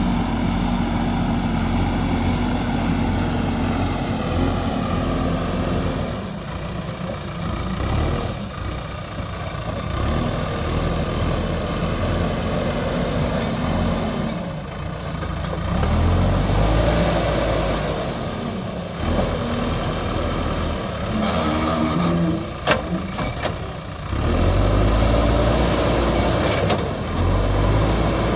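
JCB backhoe loader's diesel engine running under working load, its pitch rising and falling as it revs up and eases off again and again. A single sharp clank sounds about three quarters of the way through.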